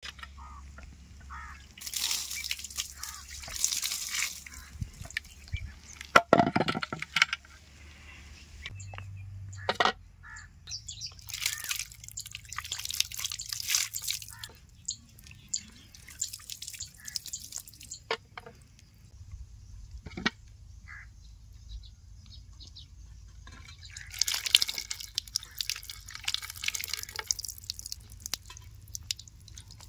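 Water splashing and dripping in spells of a few seconds each, with a few sharp knocks in between, the loudest about six seconds in.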